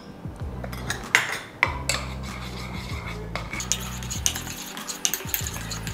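Metal spoon stirring melted white chocolate in a steel bowl, clinking and scraping against the bowl's sides in irregular clicks as colour is mixed in, over a low steady hum.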